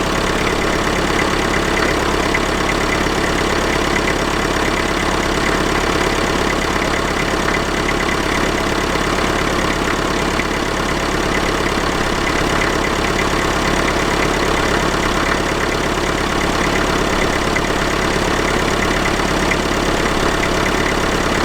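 IMT 560 tractor's diesel engine running steadily, fed by a newly fitted electronic fuel pump.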